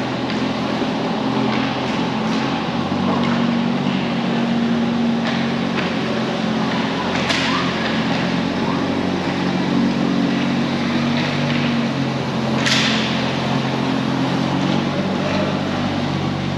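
Steady low mechanical hum made of several layered tones, with a noisy wash over it and scattered short scraping hisses, the two loudest about seven and thirteen seconds in.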